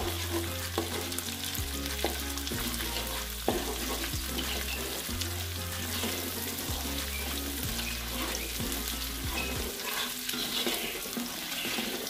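An egg frying in oil and ground spice paste in a wok, sizzling steadily, while a slotted metal spatula scrapes and taps against the pan to scramble it.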